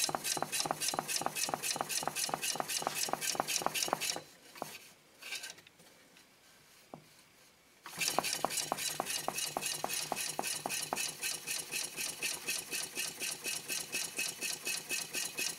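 Homemade diaphragm Stirling engine running with a fast, even ticking of about six beats a second. It stops about four seconds in and starts ticking again about four seconds later.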